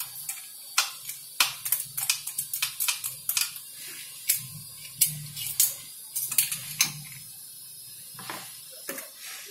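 Irregular light clicks and taps of metal and plastic parts as a chainsaw's carburetor and intake pieces are unhooked and lifted off the engine by hand. The clicks come several a second for most of the time and thin out near the end.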